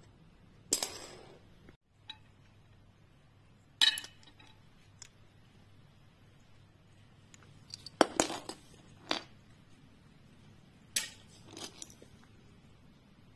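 Small hard plastic toys clicking and clinking as they are handled and knocked against each other and a glass jar, in separate knocks a few seconds apart. About a second in, a toy car is pushed and rolls briefly across a wooden floor.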